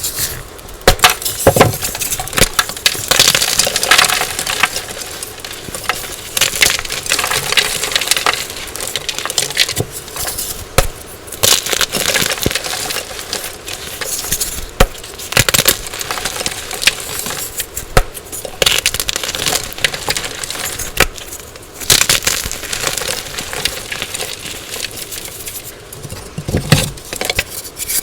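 Blocks of dyed gym chalk being crushed and crumbled, a dense run of crunching with many sharp cracks and clicks.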